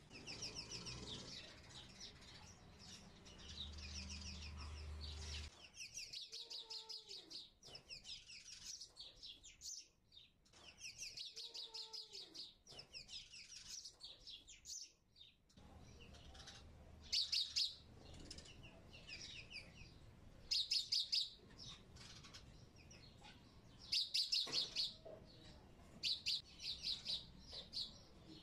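Bird chirping in repeated short bursts of rapid, high trills, the loudest bursts coming in the second half.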